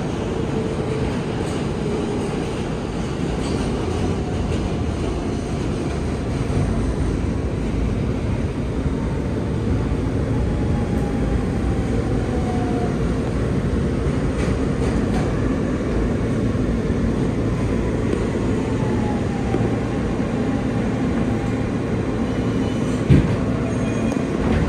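New York City subway train running and slowing into a station, heard from inside the car: a steady rumble of wheels on rails, with faint falling whines as it slows and a sharp knock shortly before the end.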